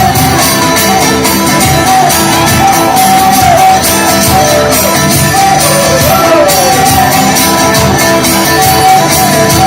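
Loud band music with a fast, steady beat and a high melody line that slides between notes.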